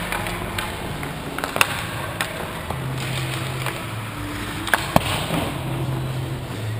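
Ice hockey play close by: skate blades scraping on the ice with sharp clacks of sticks and puck, the loudest cracks about a second and a half in and twice close together near five seconds.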